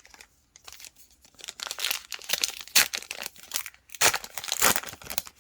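Crinkly plastic wrapper of a trading card pack being torn open and crumpled, in a run of irregular crackling bursts that starts about a second in.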